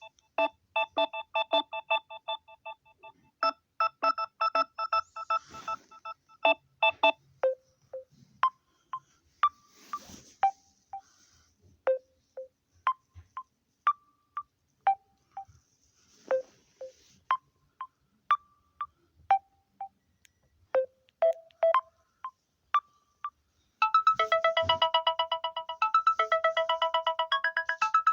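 Samsung Galaxy A01 Core ringtones playing one after another. A chiming melody of short plucked notes gives way, about seven seconds in, to a sparse tune of single notes spaced about a second apart. Near the end a fast, busy tune of rapidly repeated notes begins.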